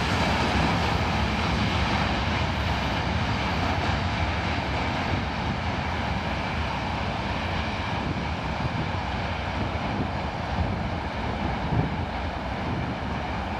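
Freight train of hopper wagons moving away on the rails: a steady rumble of wheels and wagons that slowly fades, with a couple of faint knocks near the end.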